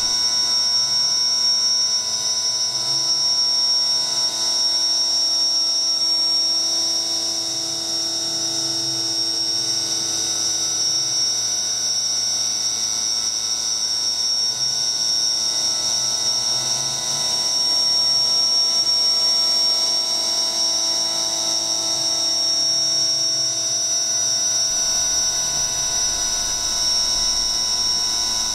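CNC mill spindle, run by an old BLDC motor, cutting pockets in 6061-T6 aluminum with an end mill under coolant spray. It gives a steady high-pitched whine with hiss.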